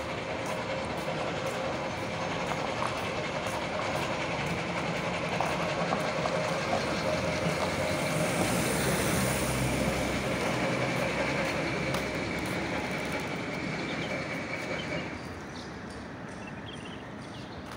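Steady outdoor street noise picked up on the move, with a faint continuous hum. It swells in the middle and drops suddenly about three quarters of the way through.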